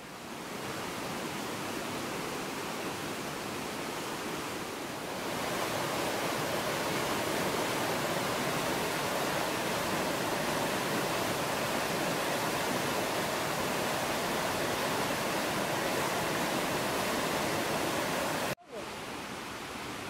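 Rushing water, steady: first a small forest stream, then from about five seconds in the louder, brighter rush of river rapids over rocks. It cuts off abruptly near the end, leaving a quieter outdoor background.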